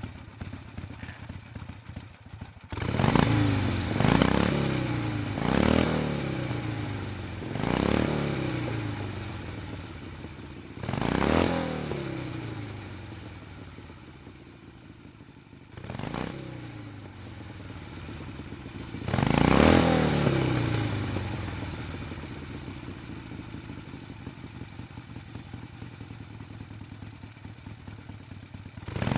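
Harley-Davidson V-twin motorcycle engine idling and being blipped with the throttle about seven times. Each rev rises sharply and falls back to idle. The revs come in quick succession at first, then further apart, with a longer stretch of idling near the end.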